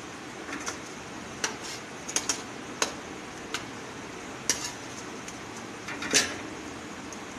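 Metal ladle clinking against a large aluminium cooking pot as chicken masala is spooned over rice: about eight sharp, uneven clinks, the loudest about six seconds in.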